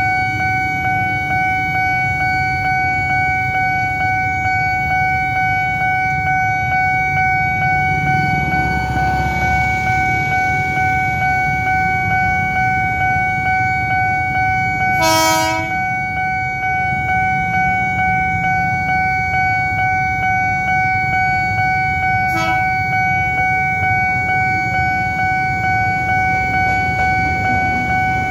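Level-crossing warning alarm sounding a steady electronic tone without a break, over the low running of idling motorcycle engines. The approaching electric commuter train sounds its horn once about halfway through and gives a shorter toot later on.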